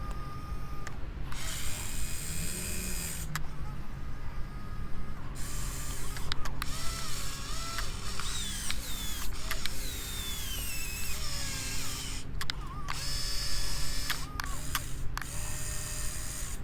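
Top Race RC excavator's electric gear motors whining and clicking as the machine is worked. The whine glides up and down in pitch over a steady low hum, and the motors stop and start several times.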